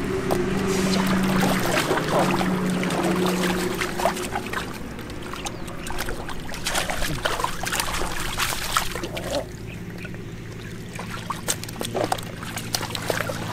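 Water splashing and dripping as hands work in shallow muddy water and fish are dropped into a plastic tub of water, with many irregular small splashes, thickest in the middle. A steady low hum runs underneath.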